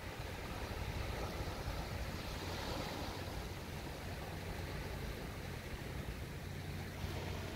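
Sea waves breaking and washing over a rocky reef in a steady wash of surf, with wind rumbling on the microphone.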